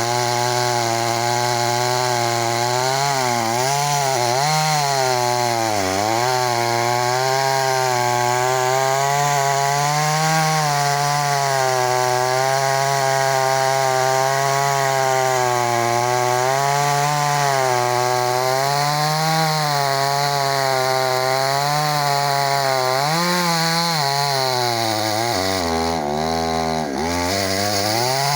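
Chainsaw running under load while cutting wood, its engine pitch dipping and recovering again and again as the chain bites. Near the end the engine bogs down sharply for about a second, then picks back up.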